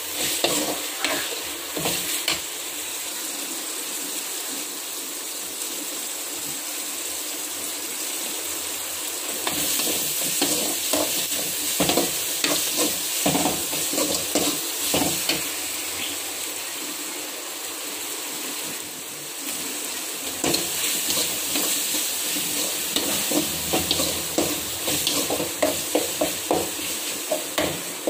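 Chopped onions and tomatoes sizzling in oil in a metal kadai, with a spoon stirring and scraping against the pan. The sizzle is steady. The spoon's clicking strokes come in spells: in the first couple of seconds, again from about ten seconds in, and most busily from about twenty seconds in.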